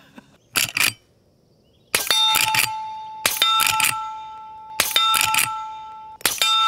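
Four shots from an integrally suppressed .44 Magnum lever-action rifle, about a second and a half apart. Each muted report is followed by the louder ringing of a struck steel target.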